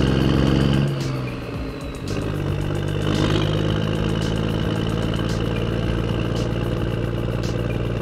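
Fire engine's diesel engine running; its pitch slides down about a second in, then holds a steady hum. A few faint sharp ticks sound over it.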